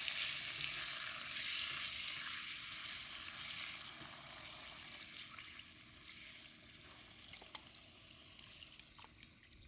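Sizzling in a hot wok as a broth sauce is poured over stir-fried sea cucumber and mushrooms. The hiss dies down over the first few seconds as the liquid fills the pan. A few faint clicks follow near the end.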